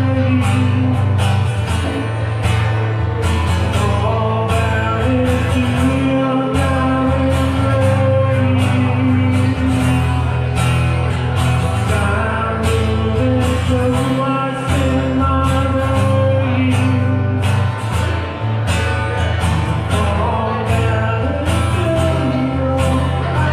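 Live rock band playing a song: guitar over a steady drum beat, with singing.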